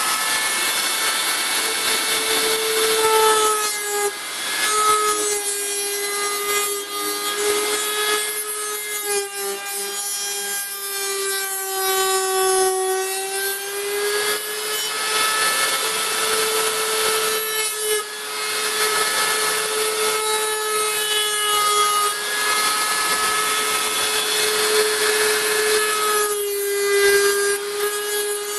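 Hand-held rotary tool with a small circular saw blade running at high speed and cutting through a thin plastic container: a steady high whine that wavers a little in pitch as the blade loads, over the rasp of the blade in the plastic, with brief dips in between.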